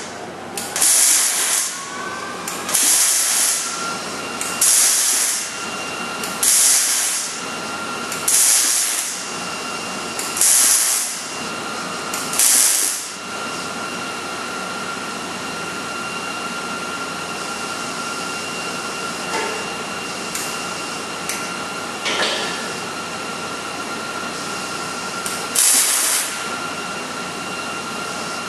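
MIG welder laying short tack or stitch welds on a steel frame rail: about seven brief bursts of arc, roughly two seconds apart, then a pause and one more burst near the end. A steady background hiss with a thin whine runs underneath.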